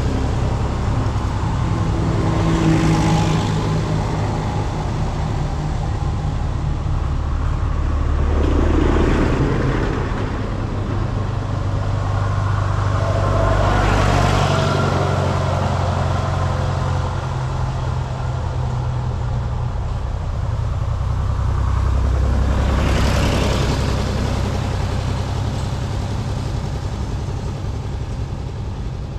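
Several vintage tractors driving past one after another, their engines running steadily; each grows louder and then fades as it goes by.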